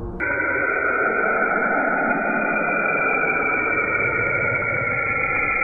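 Sonified space recording of the kind NASA releases for the Sun and planets: a steady high whine over a rushing hiss, starting suddenly just after the start and holding unchanged.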